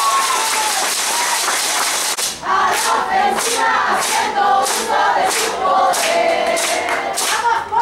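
Spectators cheering, then from about two seconds in, a group chanting in rhythm with sharp beats about twice a second.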